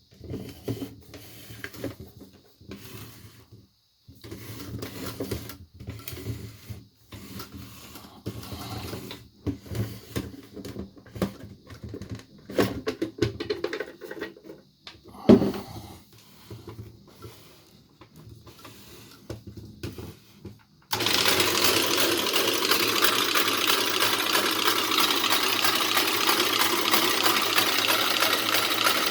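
Singer toy sewing machine stitching, first in short stop-start runs with a louder knock about halfway, then running continuously with a fast, even clatter for the last several seconds.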